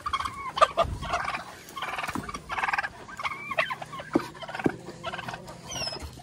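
Domestic turkeys gobbling over and over, a string of fast rattling calls, with a few sharp knocks in between.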